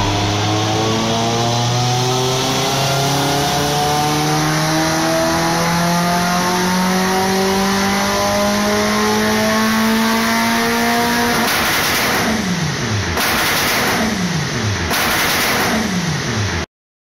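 Alfa Romeo 156 Super Touring race car's engine on a Dynapack hub dyno, pulling through a steady power run with its revs rising smoothly for about eleven seconds. It then comes off the throttle and is blipped three times, the revs falling away after each, before the sound cuts off suddenly.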